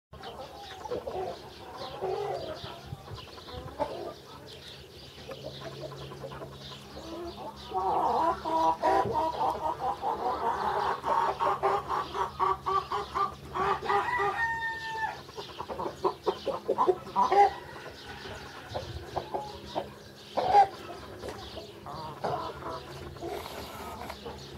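Farmyard chickens clucking and cackling, with a loud run of rapid clucks in the middle and a rooster's short crow just after it.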